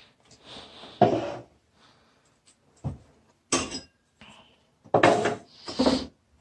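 Drinking glasses and cups set down on a wooden cupboard shelf: about five separate clinks and knocks, one with a brief glassy ring.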